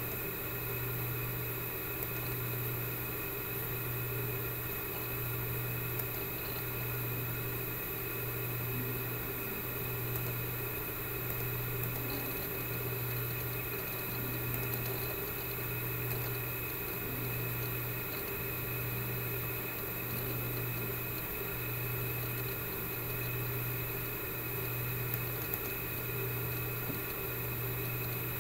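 Steady low mechanical hum with a low throb pulsing evenly a little less than once a second, and a faint steady high whine over it.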